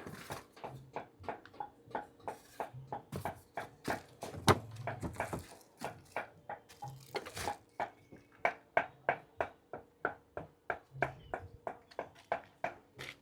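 A run of short, sharp clicks and light taps, two or three a second at uneven spacing, with a faint low hum now and then.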